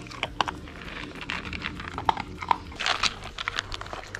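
Beagle puppy eating dry kibble from a plastic tub, with irregular crunches and clicks as it chews.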